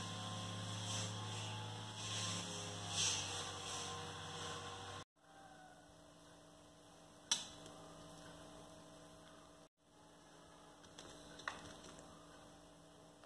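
Steady electrical mains hum, louder for the first five seconds and quieter after. The sound cuts out briefly twice, with one sharp click about seven seconds in and a fainter click near eleven seconds.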